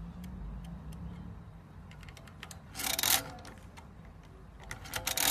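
Felix pinwheel arithmometer worked by hand: light clicks as its setting levers are moved, then a loud mechanical clatter as the crank is turned a little under halfway through. More clicks and a second clatter come near the end.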